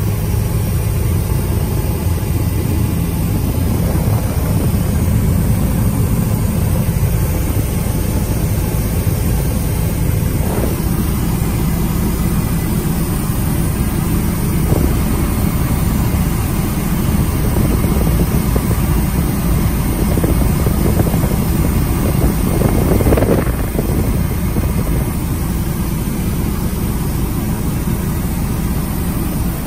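Helicopter in flight heard from inside the cabin: a loud, steady drone of rotor and engine, heaviest in the low end, with a brief swell about three-quarters of the way through.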